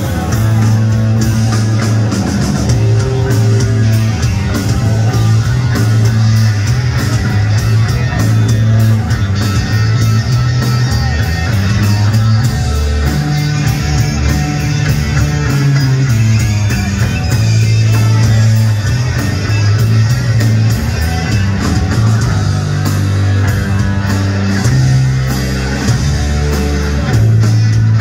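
Live electric blues-rock band playing: electric guitar over a moving electric bass line, with a drum kit keeping time and cymbals struck throughout.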